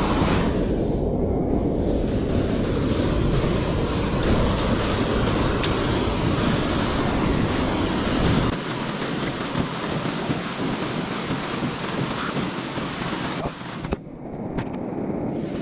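Steady rush of flowing water, with wind buffeting the microphone; the heavy low rumble drops away a little past halfway.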